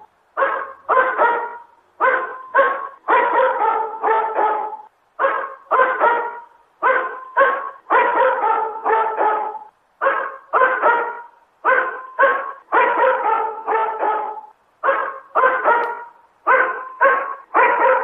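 Dog barking over and over in quick runs of two to four barks, with short pauses between the runs.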